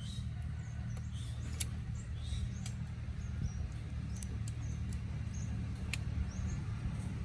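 Sharp little clicks, four of them spread through, as a small fruit's shell is cracked and peeled by hand, with scattered faint high chirps and a steady low hum underneath.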